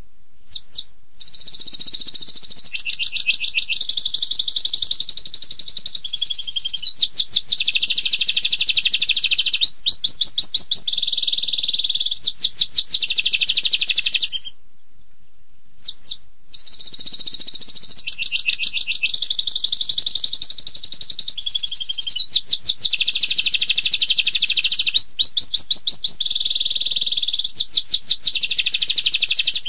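Domestic canary singing a long, high-pitched song of rapid trills and rolls, the sharp fast bursts that canary keepers call 'tembakan'. The song breaks off for about two seconds halfway through, then the same run of phrases starts again.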